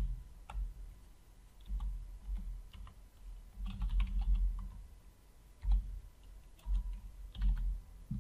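Typing on a computer keyboard in short bursts of keystrokes with pauses between them, as words are entered one field after another.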